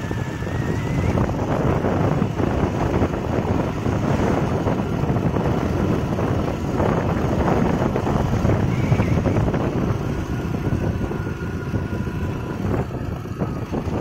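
Wind buffeting the microphone of a moving motorbike, with the bike's engine and tyres running steadily beneath it.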